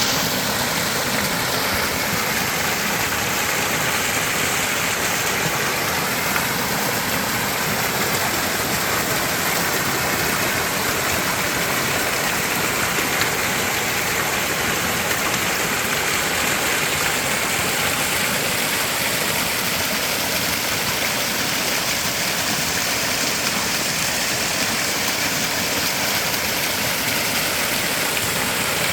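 Mountain valley stream flowing, a steady, even water noise.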